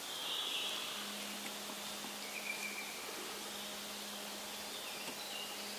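Quiet forest ambience: a faint even hiss, a low steady hum that comes in about a second in, and two brief high chirps, one at the start and one about two and a half seconds in.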